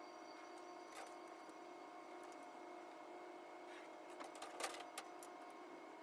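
Faint steady hum with several level tones, a single click about a second in, and a short cluster of sharp clicks and taps around four to five seconds in.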